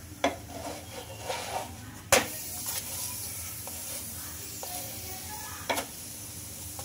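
Spinach paratha sizzling in oil on a flat griddle (tava), with three sharp taps and scrapes of a utensil pressing it; the loudest comes about two seconds in.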